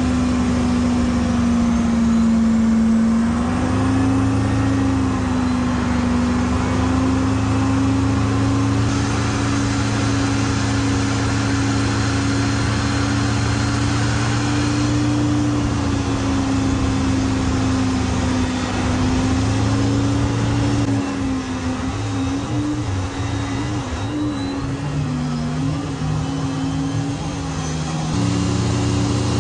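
Aircraft tug's engine running steadily under load while it tows an Airbus A321neo by a towbar, its pitch wavering slightly and turning uneven for several seconds near the end.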